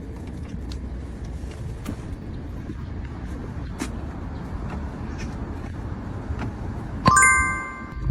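Steady low rumble with scattered light clicks. About seven seconds in comes a sharp metallic strike that rings with several clear tones and dies away in under a second.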